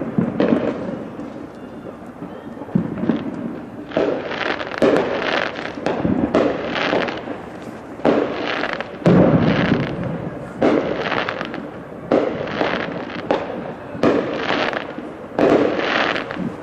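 Fireworks going off in quick succession, about a dozen loud bangs roughly one a second, each with a lingering echoing tail.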